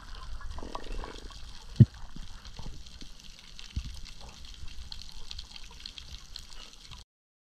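Water sloshing and gurgling, broken by scattered clicks and two sharp knocks, the loudest about two seconds in and a weaker one about two seconds later. The sound cuts off abruptly near the end.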